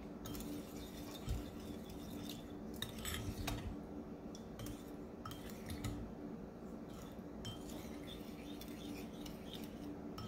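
Metal spoon stirring an oily marinade in a bowl: soft scraping with scattered light clinks against the bowl, over a faint steady hum.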